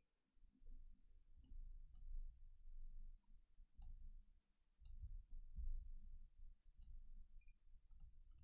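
Near silence with faint, irregular clicks, about one a second, over a low room rumble.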